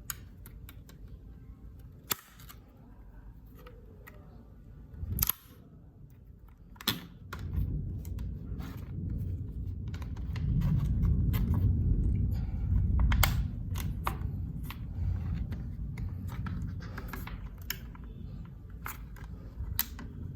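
Packaging being handled during unboxing: scattered sharp clicks and taps, with a low rubbing and handling rumble that builds from about seven seconds in and is loudest midway.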